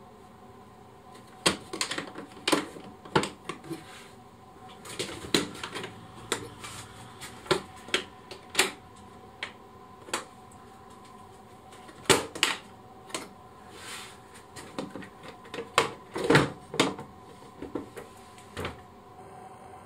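Hard plastic tool case's latches being flipped open and its lid handled and lifted off: a long series of sharp plastic clicks and clacks, some in quick clusters.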